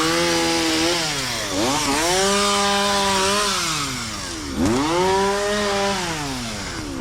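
Two-stroke chainsaw run at high throttle in three long pulls. Each time the pitch rises, holds for a second or two and then sags, dipping about a second and a half in and again about four and a half seconds in.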